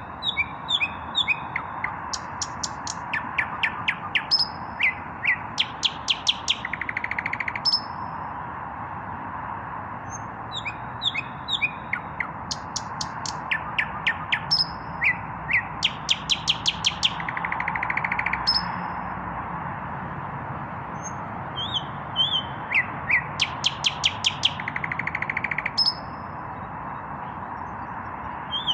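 Nightingale singing in three phrases with short pauses between them. Each phrase is a run of rapid clicking notes, loud whistles and a buzzing rattle, over a steady background hiss.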